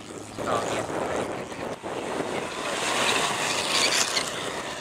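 Vintage racing cars' engines under hard acceleration on a hill climb: a 1937 Lagonda LG45 pulling away, then a 1935 Railton Light Sports coming up loudly and passing close, loudest about three to four seconds in.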